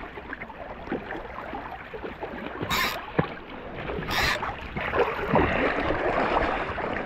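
Fast, shallow river riffle water rushing and sloshing close by, with two brief sharp bursts about three and four seconds in and louder water noise from about five seconds.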